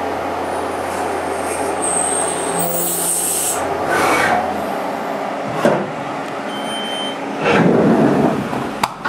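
CNC milling machine spindle running as the drill finishes a hole through a metal paintball marker body, cutting dry without coolant, with a steady hum and a high whine. The spindle stops about halfway through. A few knocks and a short louder clatter follow.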